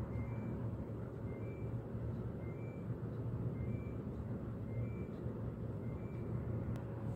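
Steady low background hum, with a faint high double chirp repeating about once a second.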